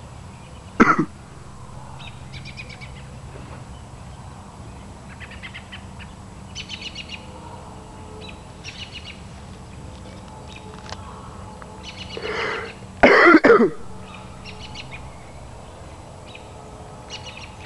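A person coughs loudly, about three quick hacks, around three-quarters of the way through. Small birds chirp in short high bursts scattered throughout.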